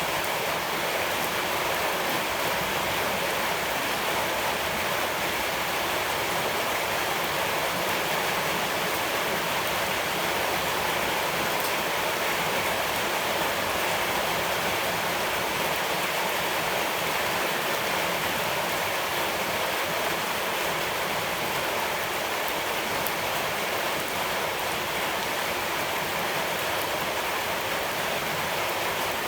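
Steady, even rush of water, a constant hiss with no pauses or separate drops standing out.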